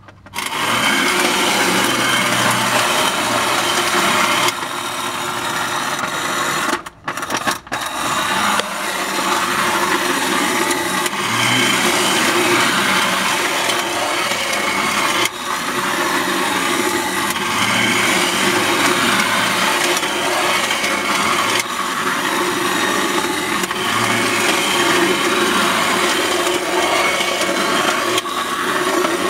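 Tin-plate clockwork toy circuit running: the wind-up motor whirring and the toy train and car rattling along their tracks on the lithographed tin tray, a steady buzz that starts just after the car is set down. It drops out briefly twice about seven seconds in.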